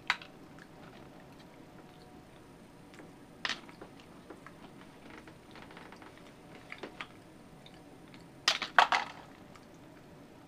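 Pet monkey eating mixed nuts from a can: sharp clicks and crunches as it picks nuts from the can and bites them, with one loud click at the start, another about three and a half seconds in, light ticks between, and a cluster of loud clicks near the end.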